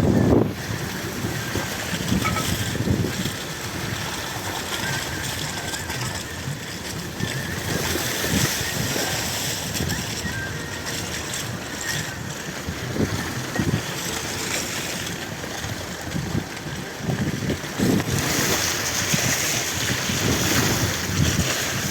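Wind buffeting the microphone: a steady rushing noise with irregular low gusts.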